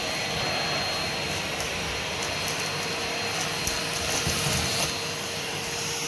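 Vacuum cleaner running steadily as it is pushed over a rug, with a faint high whine over its motor noise.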